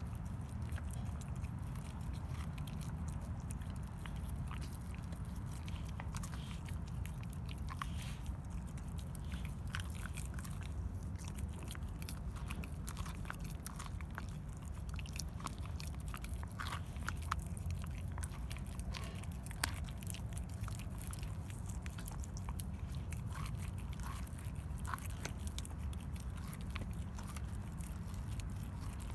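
Dog chewing and biting on a raw pork rib, with irregular wet crunches and clicks of teeth on meat and bone, over a steady low hum.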